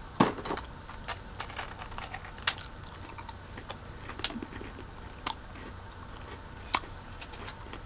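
Crisp waffle ice cream cone being bitten and chewed close to the microphone: a scattered run of sharp, dry crunches about a second apart.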